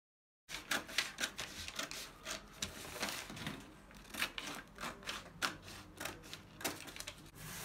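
Fabric scissors snipping through stiff brown craft-paper pattern, a quick run of sharp snips with the paper crackling and rustling as it is turned. The sound starts abruptly about half a second in.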